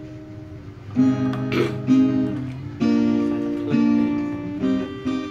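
Background music on acoustic guitar, with chords strummed about once a second.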